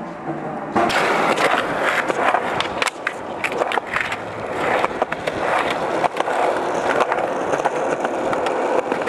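Skateboard wheels rolling on a concrete sidewalk: a steady rolling noise with many sharp clicks and ticks, starting about a second in.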